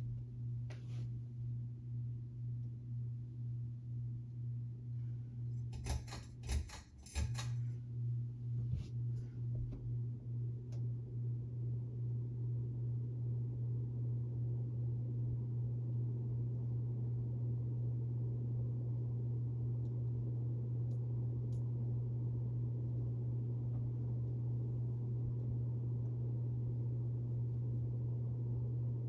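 Monte Carlo Premier ceiling fan running, its motor giving a steady low hum that pulses gently at first and then evens out. A short cluster of clicks and knocks comes about six seconds in.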